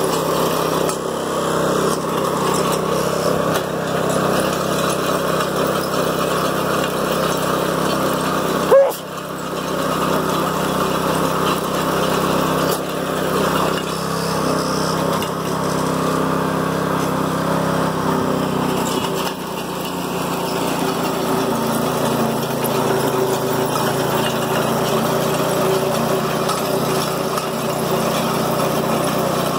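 Ground Hog walk-behind trencher's small gasoline engine running steadily under load while its digging chain cuts a trench through soil. A single sharp knock about nine seconds in, and the engine's tone drops slightly a little past halfway.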